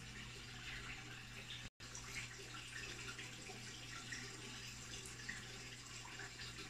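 Aquarium water trickling and bubbling steadily, with a low steady hum underneath; the sound cuts out for an instant about two seconds in.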